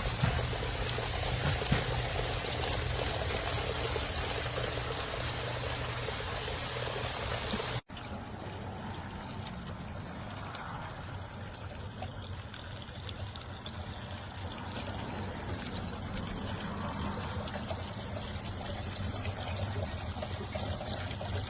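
Water falling steadily from a rain-curtain waterfall fountain, a continuous pouring and trickling. The sound breaks off for an instant about eight seconds in and resumes slightly softer.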